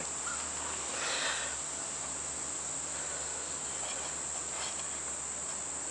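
Steady high-pitched insect trill running unbroken, with a brief soft rustle about a second in.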